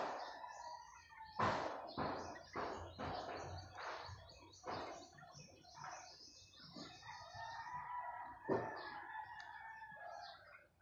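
A series of sharp, irregular knocks, most of them in the first half, then a long bird-like call held for about three and a half seconds in the second half.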